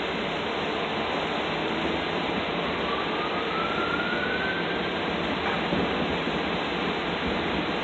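Steady rushing noise of car wash tunnel equipment running, with a faint rising whine in the middle.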